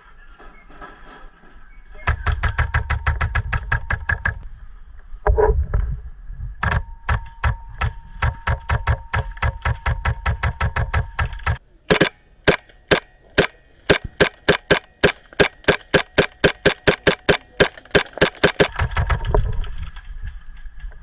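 Airsoft guns firing: two rapid strings of shots, then a longer run of louder single shots at about three or four a second.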